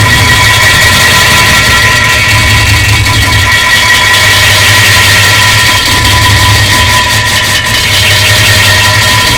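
Long, very loud, distorted fart sound effect: a continuous low buzzing drone with steady high tones over it.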